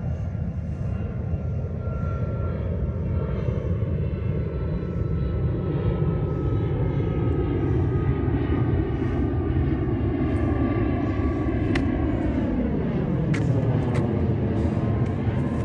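Engine rumble of an aircraft passing overhead, a loud steady noise whose tone slowly falls and then drops more sharply about twelve seconds in as it goes past.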